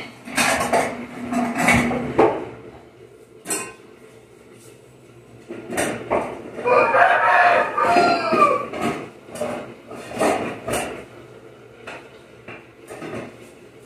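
Metal kettles clinking and knocking as they are hung up and set down on a wooden wall shelf. A rooster crows about seven seconds in.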